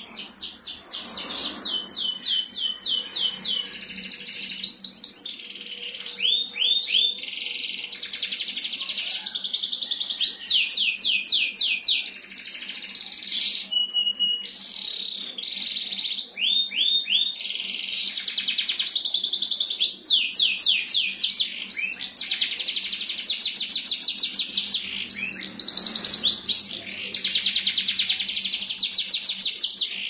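Domestic canary singing a long, continuous song of fast rolling trills, phrase after phrase with only brief breaks, and a short steady whistle about halfway through.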